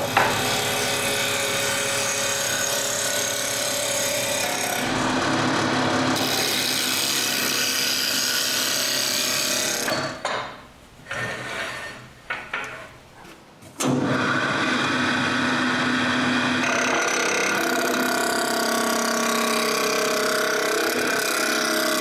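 Wood lathe spinning an elm blank while a turning tool cuts it from a sawn octagon toward a round cylinder, a steady cutting noise over the running lathe. The cutting stops for about four seconds partway through, with a few short knocks, then picks up again.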